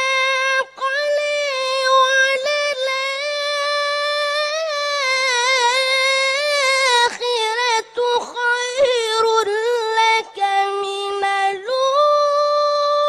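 A young boy's high voice reciting the Quran in the melodic tajweed style, drawing out long held notes with wavering ornaments and pausing briefly for breath. The pitch drops lower just past ten seconds and climbs again near the end.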